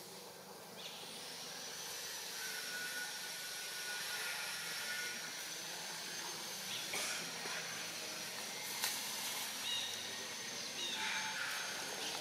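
Forest ambience with insects droning steadily at a high pitch over a soft hiss, and a few faint clicks.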